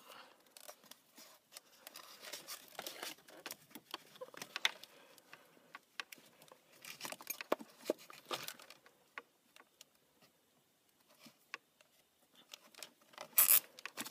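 Hands handling and routing charger wiring: scattered small clicks, taps and rustles of cable and plastic, with a short, louder scraping rasp near the end.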